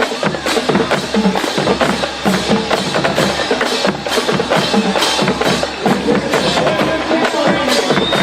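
Marching band drumline playing a cadence: a quick, steady run of sharp clicking strikes over repeating drum notes.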